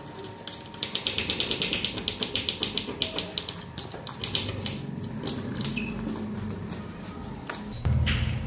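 Hands rubbing and tossing sliced red onions in a stainless steel bowl, a quick run of crisp rhythmic clicks and rustles from the onion pieces against the hands and metal, thinning out after a few seconds. A low rumble from handling comes in near the end.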